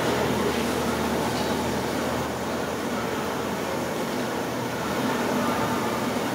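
Sliced okra deep-frying in a large iron kadai of hot oil: a steady sizzling hiss of bubbling oil, with a steady low rumble underneath.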